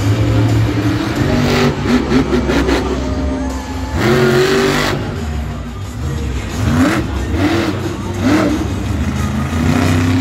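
Monster truck's supercharged V8 revving hard, its pitch climbing and dropping several times over a steady low rumble.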